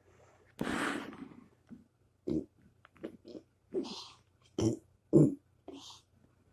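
Burping: a long noisy burst about half a second in, then a run of about seven short burps over the next few seconds, the loudest a little after the five-second mark.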